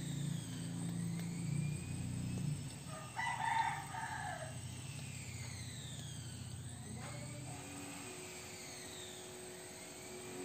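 A rooster crows once, about three seconds in, for roughly a second and a half, its pitch dropping at the end, over a steady low hum.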